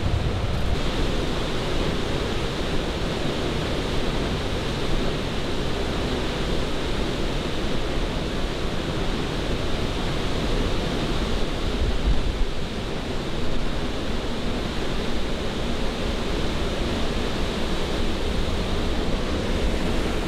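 Steady roar of a large waterfall in heavy flow, its falling water an even rushing noise with no let-up.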